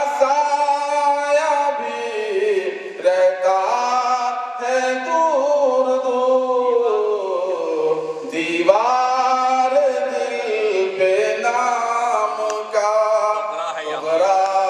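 A man's solo voice singing a devotional poem through a microphone, with no instruments, in long held notes that slide and waver in pitch.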